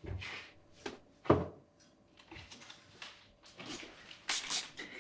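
Quiet handling sounds in a small room: soft rustling, a dull thump about a second and a half in, and a short hissing rustle near the end.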